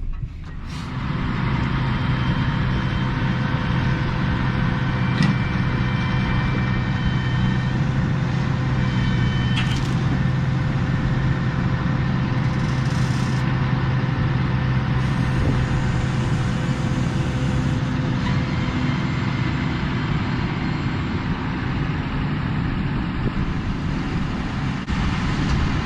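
Farm tractor's diesel engine running steadily at a constant speed, with a few faint high squeaks in the first ten seconds or so.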